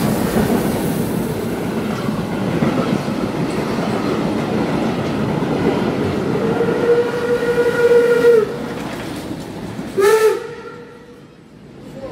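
Steam train running past at close range, a dense rumble and clatter of wheels over the rails. Near the middle it gives a long steady whistle note, then a short one about ten seconds in, after which the sound dies away.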